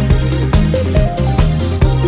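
Background music: an electronic dance track with a steady driving beat and bass.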